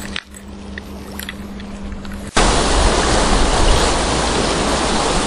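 Water of a shallow stony river running, quietly at first with a few light clicks. After a sudden cut about two seconds in, a loud steady rush of wind on the microphone comes in over the flowing stream.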